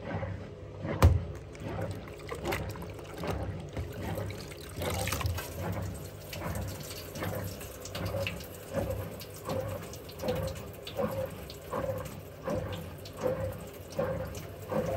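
Water streaming and dripping from a soaking-wet hoodie into the slowly turning drum of a Hotpoint Ariston Aqualtis washer dryer, with a soft rhythmic pulse a little faster than once a second as the drum turns. A single sharp click about a second in.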